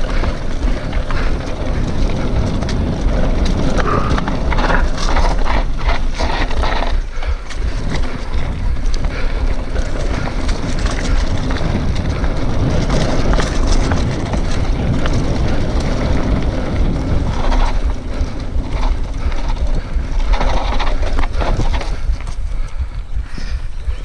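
Mountain bike ridden down a rough dirt trail: wind rumbling steadily on the microphone, tyres rolling over dirt and stones, and the bike rattling and knocking over bumps.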